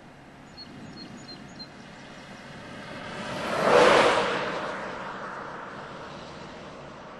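A vehicle driving past close by: its rushing tyre and wind noise swells to a loud peak about four seconds in, then fades away.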